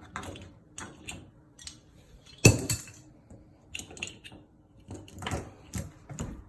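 Old lever-handle door lock being pulled apart and out of the door: irregular metallic clicks and rattles, with one loud knock about two and a half seconds in.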